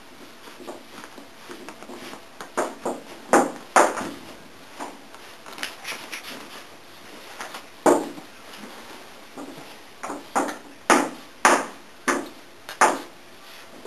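A dog rooting and pawing in a blanket bed, giving a series of irregular short knocks and thumps with quieter rustling between them.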